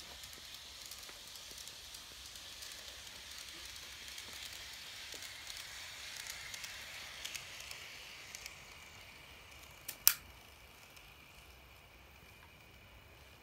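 N gauge model steam locomotive with three coaches running on plastic track: a steady high, thin whir and rattle of its small motor and wheels that fades over the last few seconds. A sharp click comes about ten seconds in.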